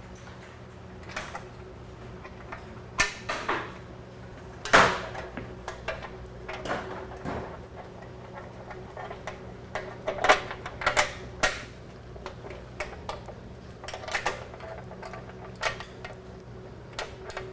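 Irregular knocks, clicks and clunks of metal parts being handled as a motorcycle rear fender is worked onto its mounts, with a few louder knocks about 3, 5, 10 and 11 seconds in.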